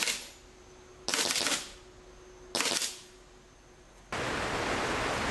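Evanix Giant PCP air rifle firing on full auto at about ten shots a second, in two short bursts of about half a second each, a second and a half apart, with the end of another burst at the very start. About four seconds in, a steady hiss of heavy rain starts.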